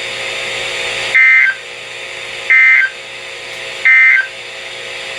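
Three short bursts of EAS (SAME) digital data tones, the end-of-message code that closes a weather alert broadcast. Each burst is about a third of a second, about 1.3 seconds apart, over a steady radio hiss and hum.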